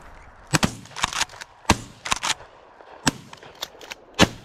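Shotgun firing: about five loud blasts spread unevenly over four seconds, with several fainter shots between them.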